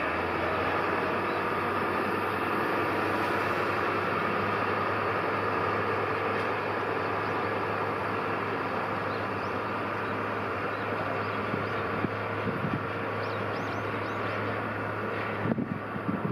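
EH200 electric locomotive moving with tank wagons during shunting: a steady running noise with a low, even hum throughout.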